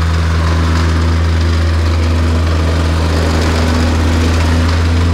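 Engine-driven vibratory plate compactor running steadily as its plate vibrates over and compacts a sand base, with a strong, even low hum.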